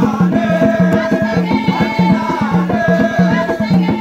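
Tall wooden hand drums beaten in a fast, steady rhythm, with a group of voices singing held notes over the drumming.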